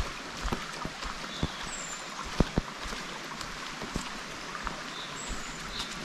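A shallow, clear mountain river running over stones and boulders, with a steady rushing, and footsteps on the riverside path clicking every half second or so.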